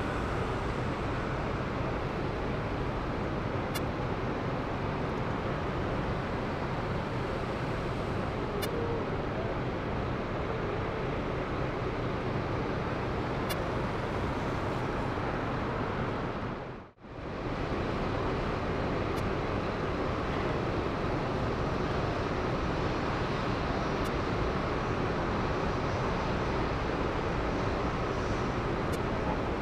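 Steady rumbling outdoor airport noise that cuts out briefly about seventeen seconds in. Faint blips come about every five seconds: electromagnetic interference on the external microphone each time a nearby LED billboard changes picture.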